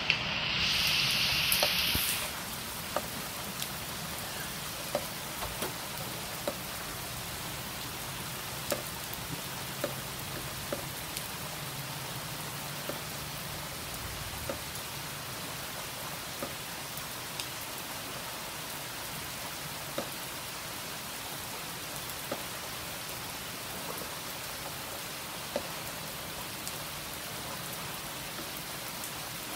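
Steady rain falling on a swimming pool and concrete patio: an even hiss with scattered sharp ticks of drops landing close by. The hiss is louder and higher for the first two seconds.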